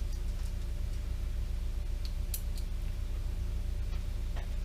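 A few light clicks of a polymer heat shield and its screws being handled and started with a screwdriver, over a steady low hum.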